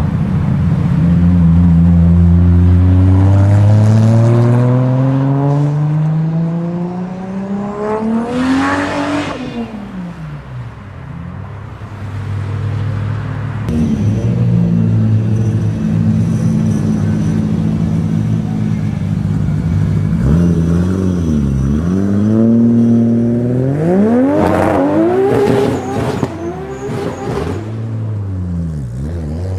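Toyota Supra MK4's 3.0-litre 2JZ straight-six under hard acceleration: the engine note climbs steadily for several seconds, then drops away sharply. It then holds a steadier note, dips, and climbs again, with a few quick rises and falls near the end.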